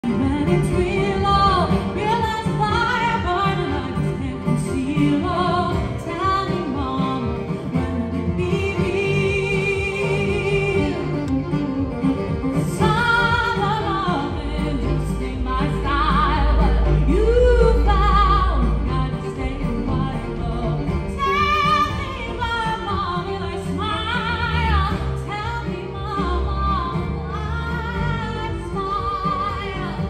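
Live acoustic string band: a woman singing lead with vibrato, accompanied by fiddle, acoustic guitar and upright double bass.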